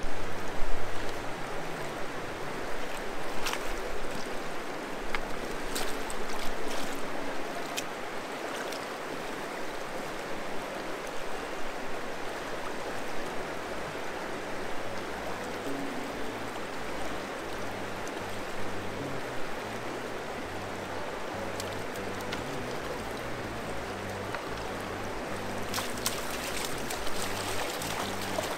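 River water rushing steadily over a rocky bed. It is louder and more uneven for the first several seconds, with scattered clicks and knocks.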